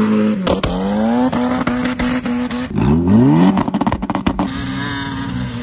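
Turbocharged Honda F20B engine in a mid-engine, rear-drive CRX revving hard as the car spins in sand, its pitch climbing in repeated quick pulls. A rapid run of sharp cracks comes about three and a half seconds in.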